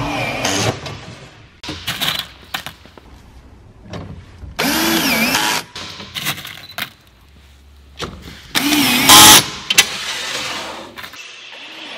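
Cordless drill driving screws into aluminium window-screen frame rails: two short runs of about a second each with a whine that wavers in pitch as the trigger is worked, and clicks and clatter of screws and plastic fittings being handled between them.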